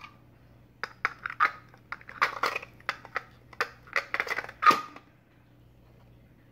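Large steel ball bearings clicking and clacking against a hollow plastic wheel as they are moved into its outer slots, a run of sharp clicks over about four seconds. The plastic cover is then set onto the wheel, the loudest clack near the end.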